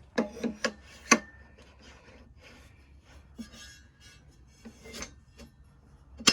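Hard Starlink dish parts and cable being handled: a few quick knocks in the first second, scraping and rubbing in the middle, and one sharp click near the end.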